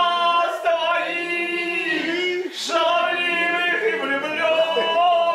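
An older man singing a Russian song solo and unaccompanied, holding long, drawn-out notes.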